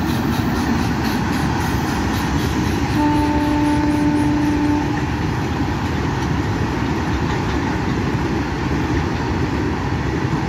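Freight train of tank wagons hauled by a WAG9 electric locomotive rolling past, a steady rumble of the wagons on the track. About three seconds in, a locomotive horn sounds once for about two seconds.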